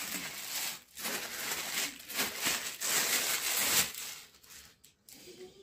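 Plastic packaging and bubble wrap crinkling and rustling as hands pull a bagged item out, in several bursts that die down about four seconds in to fainter rustling.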